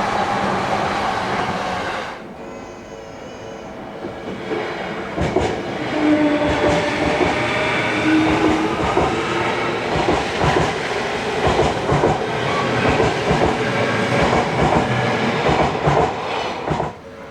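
Trains passing close by: one train's noise cuts off about two seconds in, then another train approaches and runs past, its wheels clacking rapidly over the rail joints, until it cuts off near the end.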